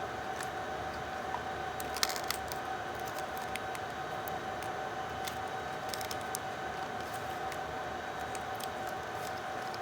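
A few light, sharp clicks and taps, the sound of laptop parts being handled, over a steady high-pitched electrical hum and hiss.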